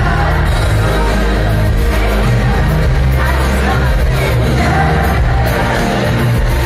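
Live band playing a pop-rock song, with a male lead singer's voice over drums, bass guitar and keyboard. It is recorded loud from within the arena crowd.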